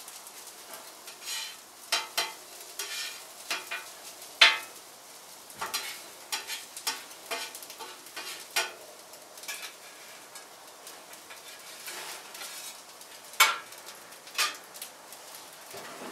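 A metal cooking utensil scraping and clinking against a pan while food sizzles, in irregular strokes of stirring and turning. Two sharper clinks stand out, about four seconds in and near the end.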